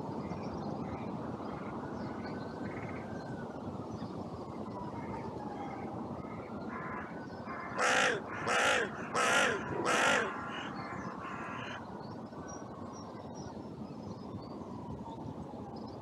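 A carrion crow caws four times in quick succession about halfway through, each harsh call under half a second, with fainter calls just before and after. Steady wind noise runs underneath.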